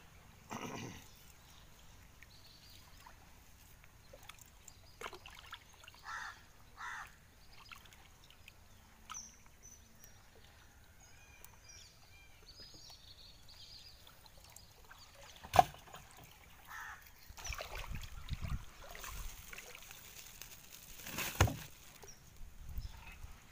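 Shallow water sloshing and trickling as a fish is worked out of a gill net by hand, with scattered knocks and a sharp knock about fifteen seconds in. Near the end there is a busier stretch of handling noise with a loud thump.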